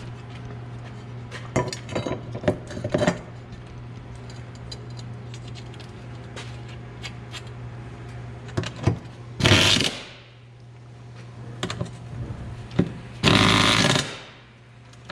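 Power tool, most likely an impact wrench, rattling in two short bursts while tightening the exhaust hardware of a mid-muffler delete kit. Earlier there are clicks and knocks of hand tools on metal, all over a steady low hum.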